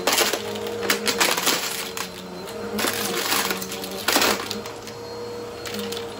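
Bissell vacuum cleaner running with a steady hum while it sucks up small wooden tiles and plastic discs from a rug; the debris clatters up through it in several loud rattling bursts.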